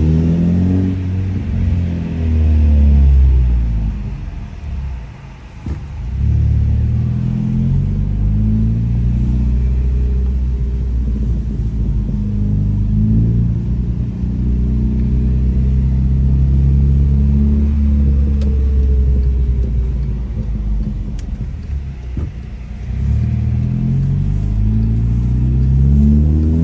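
Volkswagen MK6 Jetta GLI's turbocharged 2.0-litre four-cylinder engine and exhaust under way, the pitch rising and falling in steps as the DSG dual-clutch gearbox changes gear. Short sharp crackles come from the exhaust where the revs drop off, about five seconds in and again near twenty-one seconds.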